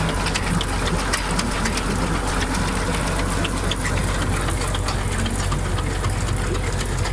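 Engine running steadily with a low, even hum, with many small clicks and rattles over it.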